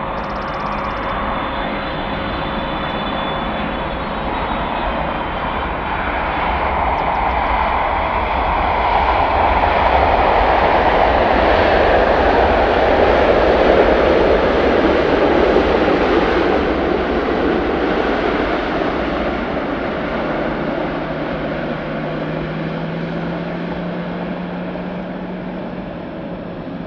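Twin-engine Boeing 777 jet roar during a landing, swelling to its loudest about halfway through and then slowly fading. Wind buffets the microphone throughout.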